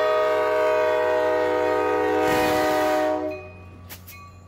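Diesel locomotive's air horn sounding one long, steady chord as it runs through a road grade crossing, the warning signal for the crossing. A rush of noise comes just before the horn cuts off about three seconds in.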